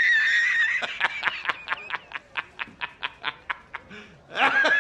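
A man's high-pitched, hysterical laugh. It opens with a shrill held cry, then breaks into a long run of quick staccato 'ha' pulses, about five a second, that fade. A second shrill laugh begins near the end.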